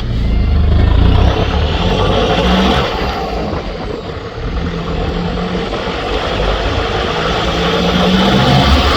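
Nissan Navara D22's ZD30 four-cylinder turbo-diesel engine running through a new stainless steel straight-through exhaust, its note rising and falling: loud at first, easing off in the middle and building again near the end, with a faint high whistle rising and falling in the first few seconds.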